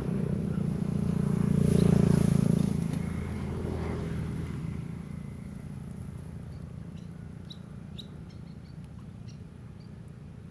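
An engine passes by, growing loud about two seconds in and then fading away. A few short bird chirps come near the end.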